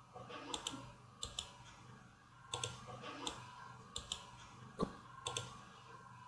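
Faint computer mouse clicks, mostly in quick pairs, about once a second.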